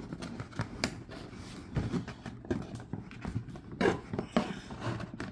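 Knife cutting and scraping through a corrugated cardboard box, with irregular scratches, clicks and knocks as the cardboard is worked and handled.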